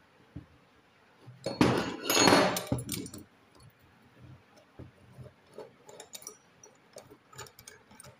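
Metal clinking and handling noise of a valve spring compressor being set on a Hero Splendor Plus cylinder head, with a louder clattering rattle lasting about a second and a half near the start, then light scattered clicks.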